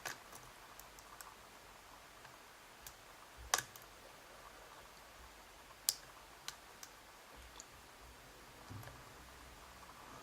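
A few sharp metallic clicks and faint ticks, spaced irregularly, from a lock pick working the pins of a lock under tension. The loudest click comes about three and a half seconds in, and another comes near six seconds.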